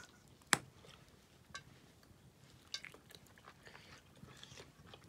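A person chewing a mouthful of cooked toad meat with small crunching and smacking sounds, with one sharp click about half a second in and a few fainter clicks after.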